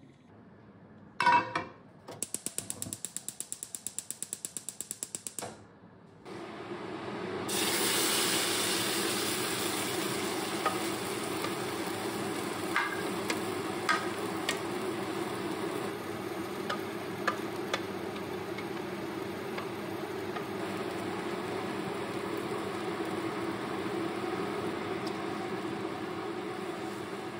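Gas hob igniter clicking rapidly for a few seconds until the burner lights, then a steady hiss and sizzling as a thick sauce goes into the hot frying pan, with a few light taps of a utensil.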